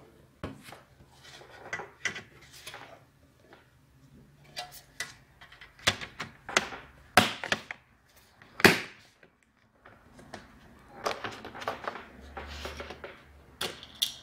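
Laptop bottom cover being fitted back onto the chassis and pressed into place by hand: a scattered series of plastic clicks and knocks, the two loudest sharp knocks a little past the middle.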